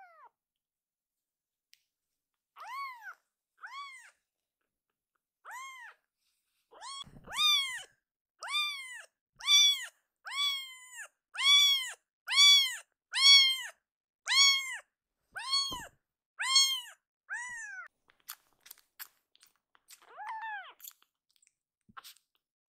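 A baby tabby kitten crying loudly, high meows that rise and fall in pitch: a few spaced calls at first, then a long run of about one call a second, stopping near the end with only a few small clicks and one last meow.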